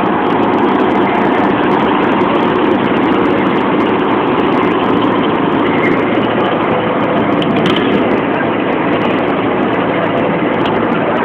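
Fishing boat's engine running steadily: a constant low hum under a dense, even rushing noise.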